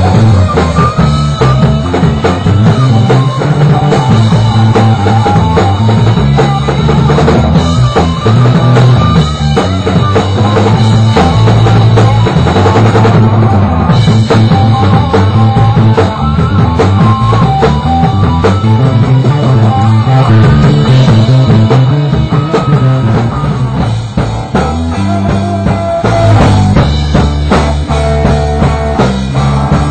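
Rock band playing live: electric guitar over a drum kit, loud and continuous.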